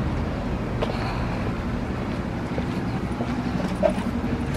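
Steady low mechanical hum, like a motor or engine running, with one brief tap about four seconds in.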